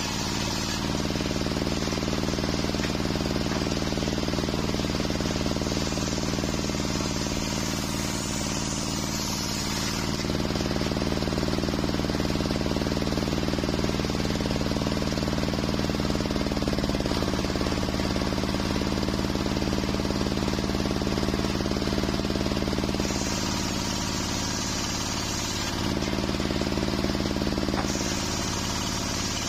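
Large table-mounted circular sawmill blade running steadily under machine power, ripping waru wood planks into rafter stock. Its tone shifts several times as boards are fed through the blade and cleared.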